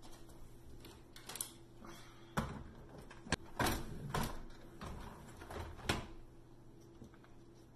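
Wire dish racks of a Samsung dishwasher being slid back into the tub on their rails, with a series of metal rattles and clunks, about half a dozen knocks spread through.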